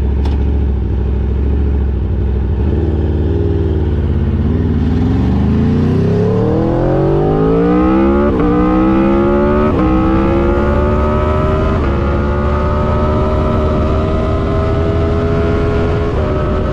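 Aprilia RSV4's V4 engine idling, then pulling away and accelerating hard through the gears. The pitch climbs in each gear and drops sharply at several upshifts.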